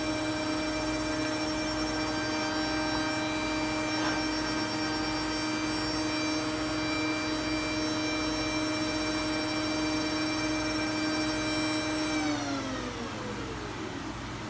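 An electric motor or fan running with a steady whine, then winding down in pitch about twelve seconds in as it is switched off during repeated power on-off testing of the equipment.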